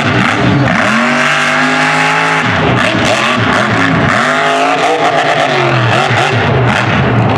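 Mega truck's engine revving hard, its pitch climbing, holding, then dropping and climbing again several times as the throttle is worked.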